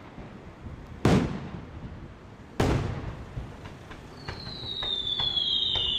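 Aerial firework shells bursting: two loud bangs about a second and a half apart, each echoing away. Then scattered small pops, and from about four seconds in several high whistles that slowly fall in pitch.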